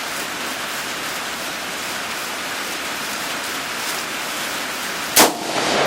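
Steady hiss of heavy rain, then about five seconds in a single AR-15 rifle shot, its sharp crack followed by about half a second of echo.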